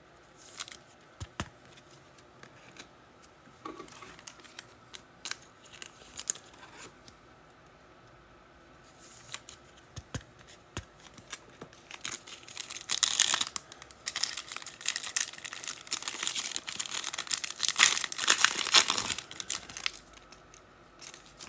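Trading card packs being handled and torn open, their wrappers crinkling: scattered clicks and rustles at first, then a long stretch of dense crinkling and tearing from about twelve seconds in until shortly before the end.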